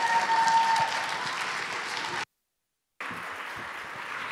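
Audience applauding, with a held tone over the clapping that fades out about a second in. The sound cuts out completely for under a second about two seconds in, then the applause carries on a little quieter.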